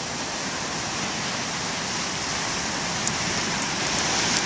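Steady rushing noise of heavy surf from big storm waves, swelling slightly near the end.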